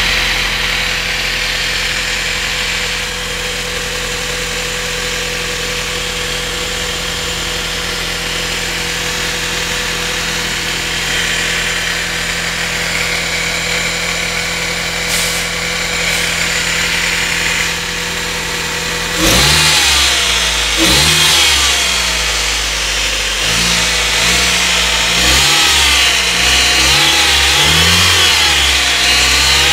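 Mitsubishi 4G92 MIVEC 1.6-litre inline-four idling steadily, then revved up and down several times from about two-thirds of the way in. The engine has a ticking noise that the owner hears when it is started cold in the morning and that fades after 10 to 15 minutes of running.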